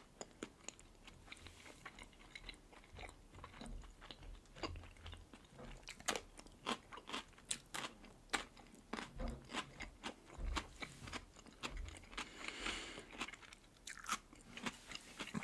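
Close-miked crunching and chewing of fresh cucumber slices: a string of sharp, crisp crunches, thickest from about six to ten seconds in.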